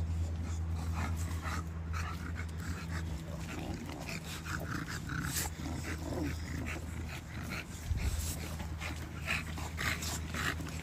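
Bully-breed dogs in a kennel yard giving many short, scattered vocal sounds, over a steady low hum.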